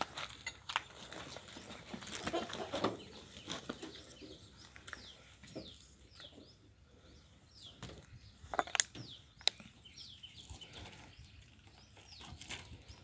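Occasional sharp knocks and rattles from a manual wheelchair being handled beside an auto-rickshaw, the loudest two close together near the end. Through the middle and latter part, birds chirp in a quick series of short falling chirps.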